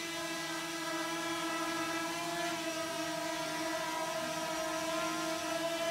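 K911 GPS quadcopter drone's four motors and propellers running as it hovers and slowly climbs, a steady whine that holds one pitch.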